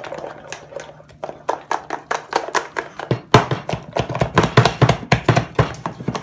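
Potato masher pounding and scraping through mashed potato in a saucepan, a rapid run of soft knocks several a second that gets louder and faster about halfway through.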